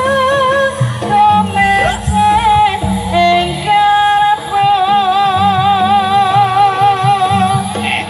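Jaranan (kuda lumping) gamelan music: drums keep a rhythm under a high melody line that wavers with strong vibrato.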